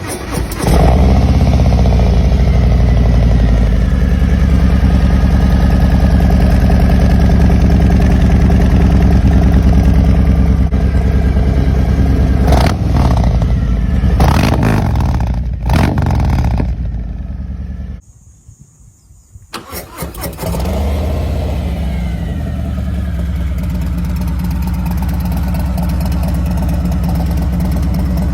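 Harley-Davidson Milwaukee-Eight V-twin engine breathing through an S&S SuperStreet 2-into-1 exhaust: it starts and idles, is blipped three times, cuts out, then is started again and settles back to idle.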